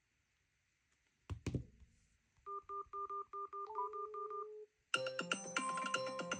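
A knock about a second in, then a quick run of short electronic phone beeps, about four a second, ending in a held tone. Then a mobile phone's incoming-call ringtone melody starts about five seconds in.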